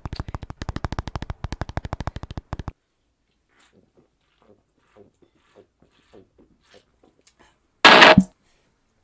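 A fast, even electronic beat of about ten pulses a second stops suddenly about two and a half seconds in. Faint scattered ticks follow, and near the end comes a short, very loud, distorted blast.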